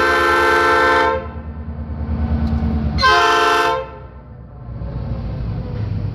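Diesel freight locomotive's multi-note air horn sounding for a road crossing: a long blast that cuts off about a second in, then a short blast about three seconds in. Between and after the blasts the locomotive's diesel engine rumbles, growing louder as it approaches.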